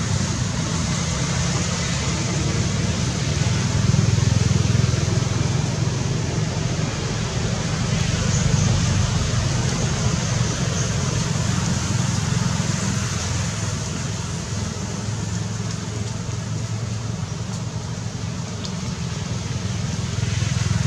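Steady low rumble and hiss of outdoor background noise, swelling and easing slowly, with no distinct event standing out.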